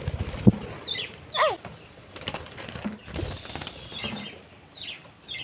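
A flurry of wing flaps at the start, then scattered short high chirps of parakeets, one sweeping down in pitch, with a few clicks and knocks in between.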